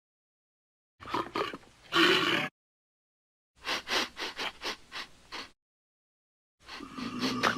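Cartoon alligator sound effects played as separate clips with silent gaps between: a growling roar, then a quick run of about eight short grunting sounds, then another drawn-out growl starting near the end.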